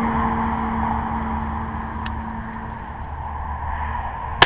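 Wind rumbling on the microphone and a steady engine drone that fades out about three seconds in, then a single shotgun shot near the end.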